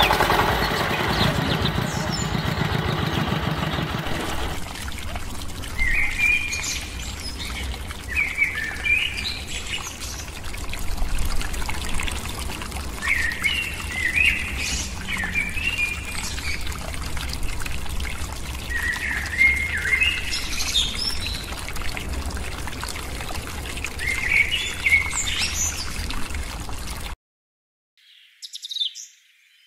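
A bird chirping, with short clusters of calls repeated every two or three seconds over a steady low hum. A louder, steady pitched sound fills the first four seconds and then stops, and near the end everything cuts out briefly before the chirps come back thinner.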